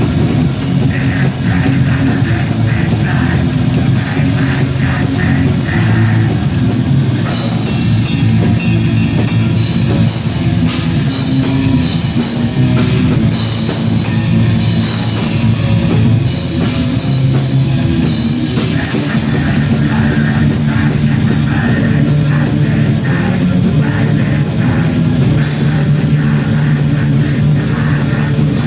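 Black metal band playing live at loud volume: distorted electric guitars, bass and a drum kit in a dense, unbroken wall of sound.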